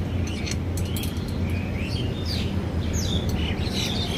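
Small birds chirping, short rising and falling calls that grow busier toward the end, over a steady low rumble.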